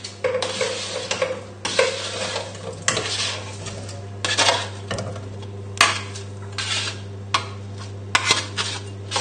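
A utensil scrapes roasted vegetable chunks across a metal baking tray and pushes them into a saucepan. It gives irregular scrapes with sharp clinks and knocks as pieces drop into the pan.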